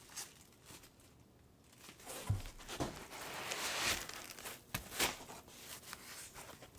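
Packaging rustling and crinkling as parts are taken out of the box, swelling for a couple of seconds midway, with a few light knocks.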